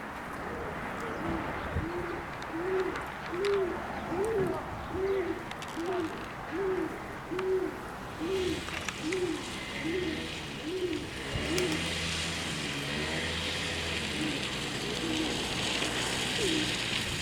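A bird hooting: about fifteen low, evenly spaced hoots, roughly one and a half a second, that stop about two-thirds of the way through. A steady hiss rises in the second half.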